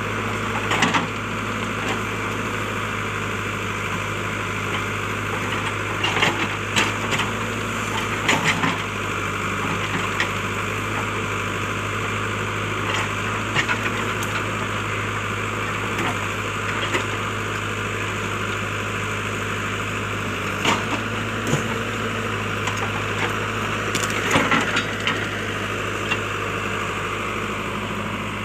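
JCB backhoe loader's diesel engine running steadily under load, with sharp cracks and snaps of splintering wood at intervals as trees are torn out, the loudest clusters about six to nine seconds in and again around twenty-four seconds.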